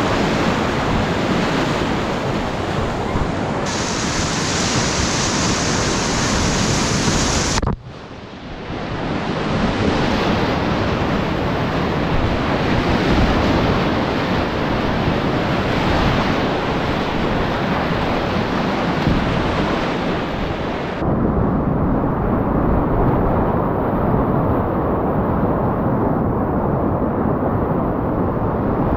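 High-water whitewater rapids of the South Platte rushing and churning, a loud steady noise of white water on the camera's microphone. The sound shifts abruptly a few times: brighter about 4 s in, a brief drop near 8 s, and duller and muffled from about 21 s on.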